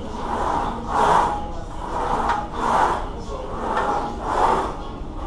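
A man breathing hard and rhythmically while pressing a plate-loaded leg press, a loud breath about every second.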